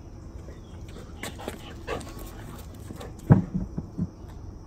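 A dog vocalising in short sounds: a few brief whines early on, then a louder burst of several short yelps or barks about three seconds in.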